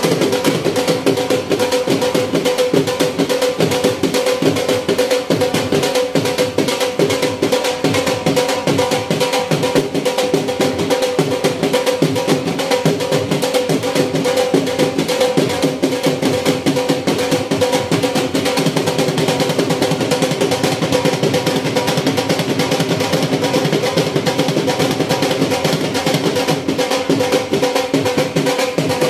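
Two-headed barrel drums (dhols) beaten in a fast, continuous rhythm, with a steady held melodic tone running underneath.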